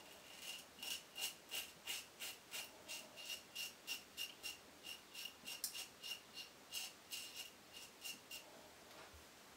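Colonial General safety razor scraping through lathered stubble in quick short strokes, about three a second, during the second pass of a wet shave. The strokes stop about a second before the end.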